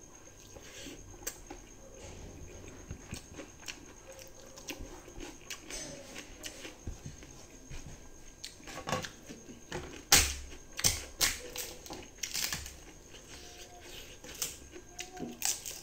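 Close-up chewing and lip smacking of a person eating rice and egg by hand: a run of short wet clicks and smacks, louder and more frequent a little past the middle.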